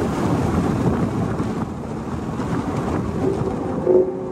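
Wind rushing through the open cabin of a 2022 Chevrolet Camaro convertible driving at speed, over the running of its four-cylinder engine. A brief louder pitched note comes near the end.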